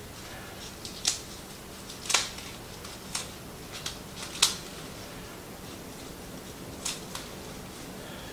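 Knife cutting the stems out of kale leaves on a cutting board: about seven short, sharp cuts and knocks, unevenly spaced, with a longer gap before the last two.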